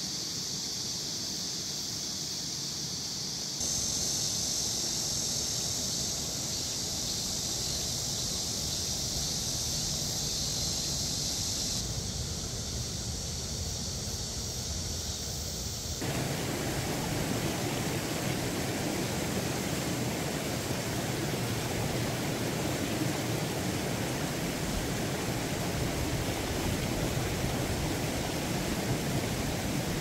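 Mountain stream water running over granite boulders, with a steady high hiss in the first half. About halfway through it changes to a louder, fuller rush of water pouring down a small cascade into a pool.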